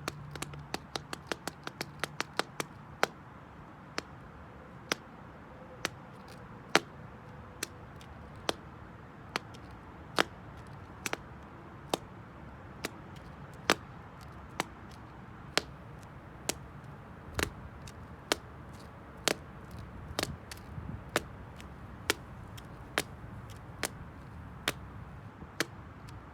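The toe of a black slingback shoe tapping on concrete: sharp single clicks, several in quick succession at first, then slowing to roughly one or two a second with the odd double tap.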